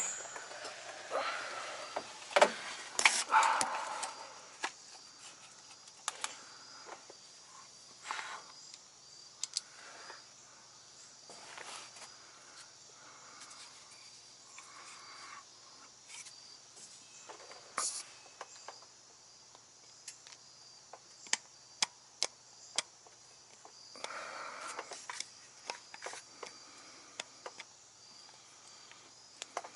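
Scattered clicks, clinks and short scrapes of hand tools and small metal parts being handled while a truck's starter is worked on, with a cluster of sharper knocks a few seconds in and another at about eighteen seconds.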